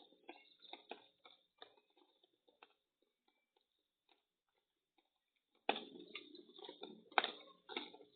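A pigeon cooing in a low murmur close to a security camera's microphone, with scattered light taps and clicks. The cooing fades out for a couple of seconds about halfway through and starts again louder near the end.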